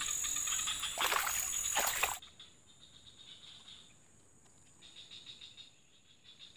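Outdoor ambience of insects buzzing steadily at a high pitch, with two short rushes of noise about a second apart. After about two seconds the sound drops suddenly to a much fainter insect chirring.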